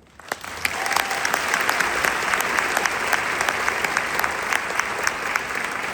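Audience applauding: the clapping starts about a third of a second in, builds quickly and holds steady.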